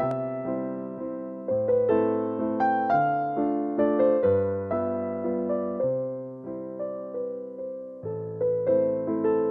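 Background music: a gentle piano-style keyboard melody, its notes struck and fading away one after another.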